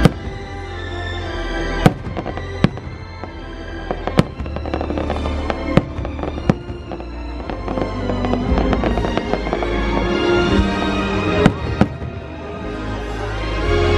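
Fireworks shells bursting in a series of sharp bangs, one every second or two with a lull in the middle, over the fireworks show's music.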